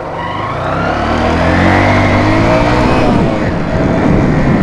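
A motor vehicle passing close by: its engine note grows louder, then its pitch drops as it goes past.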